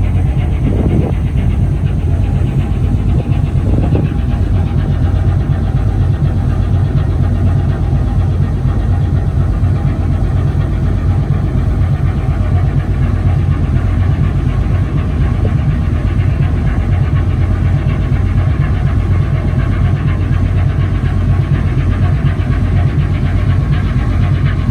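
A coastal tanker's six-cylinder main marine diesel engine running at a steady speed, a loud, even low drone.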